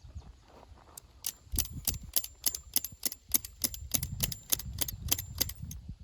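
Tent stake being hammered into the ground: a run of sharp, quick strikes, about three a second, starting about a second in and stopping near the end.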